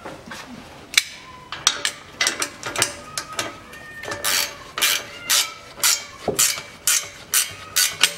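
Wrench ratcheting on a nut at the muffler's flange joint, sharp metal clicks as the nut is run on. The clicks are irregular at first, then settle into a steady rhythm of about two strokes a second from around four seconds in.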